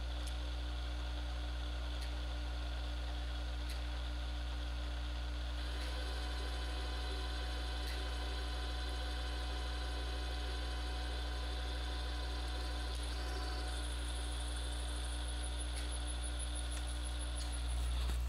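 Vertical milling machine running with a boring head cutting a bearing bore in a metal block: a steady motor hum, with the hiss of the cut filling in about six seconds in and dying away shortly before the end.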